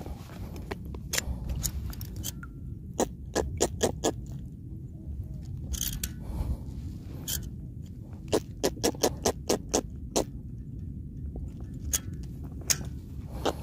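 Metal fishing pliers and a lip-grip clicking and rattling against a lure's hooks as the lure is worked out of a trevally's mouth: sharp irregular clicks in several quick runs. A low steady rumble lies underneath.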